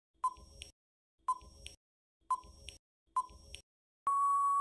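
Quiz countdown-timer sound effect: four short beeping ticks about one second apart, then a longer steady beep about four seconds in that marks time up.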